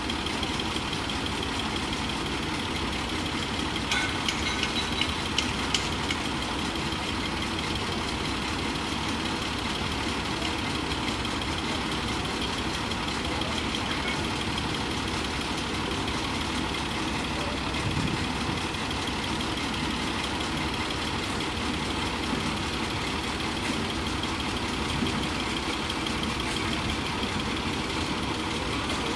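Crane-mounted drilling rig's diesel engine idling steadily, with a few sharp metal clanks about four to six seconds in.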